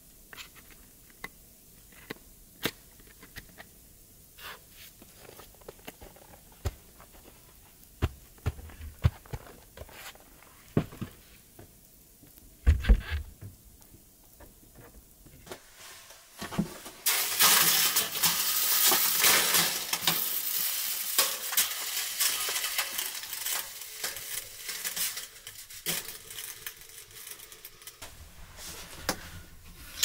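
Scattered knocks and clicks of things being handled, then a loud steady hiss with crackles that starts suddenly, lasts about nine seconds and then dies down: steam from water on the hot stones of a metal sauna stove.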